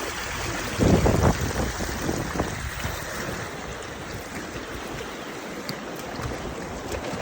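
Steady rush of wind and moving water, with wind buffeting the microphone in loud low rumbles about a second in and again, more weakly, a little later.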